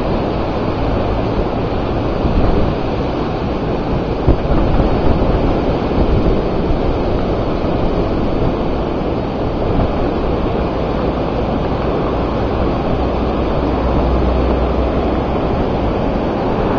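Storm wind blowing hard across the microphone, a steady rushing noise that swells slightly now and then.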